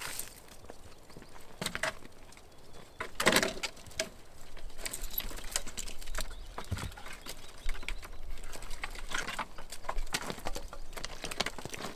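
Scattered rustling, clicks and knocks at an uneven pace, with one louder rustle about three seconds in.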